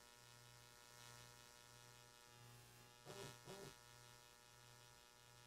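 Near silence with a faint, steady electrical hum, broken by two brief faint sounds about three seconds in.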